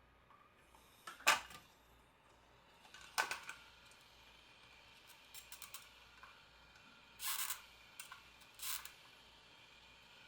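Tools working the power jack loose on the circuit board while the solder is melted: two sharp clicks, a quick run of small ticks, then two short scrapes.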